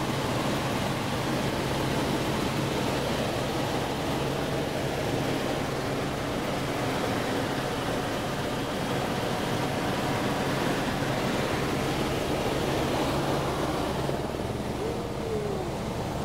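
Light helicopter in flight, heard from inside the cabin: the steady drone of turbine and rotor under a constant rush of wind through the cabin.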